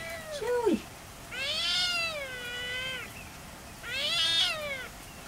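An animal calling in drawn-out, pitched cries: two short ones at the start, a long one of nearly two seconds, and another of about a second near the end.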